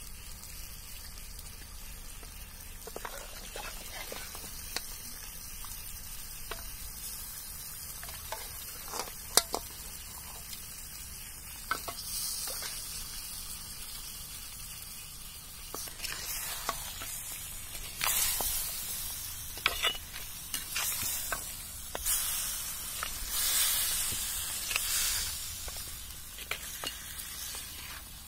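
Cow legs sizzling in a clay pot over a wood fire, with a metal spoon scraping and clinking as it stirs them. In the first half, quieter clinks and splashes of broth being ladled out of an aluminium pot; about halfway through, the sizzling gets louder and comes in repeated surges with sharp scrapes.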